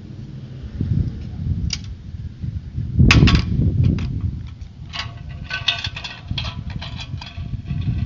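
Five-wheeled hand-truck scooter prototype rolling over asphalt on small hard wheels, with a low rumble and a rattling metal frame. A loud sharp clack comes about three seconds in, followed later by a quick run of metallic clicks and rattles.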